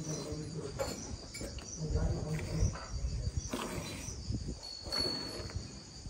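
Milk squirting in streams from a Gir cross cow's teats into a steel pail of frothy milk during hand milking, in short strokes about once a second. Crickets chirp steadily in the background.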